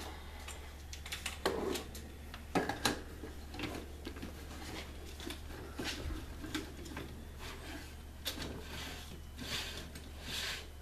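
Scattered light clicks, knocks and rubbing as the plastic body and paint cup of a Wagner paint sprayer are handled, over a steady low hum.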